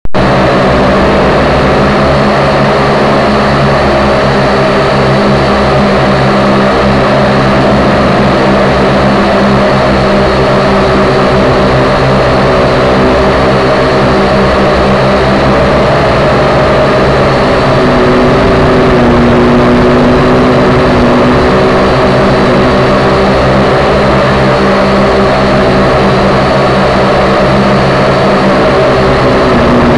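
WLToys V222 toy quadcopter's small electric motors and propellers buzzing steadily, heard up close through its onboard camera's microphone. The pitch rises a little past halfway.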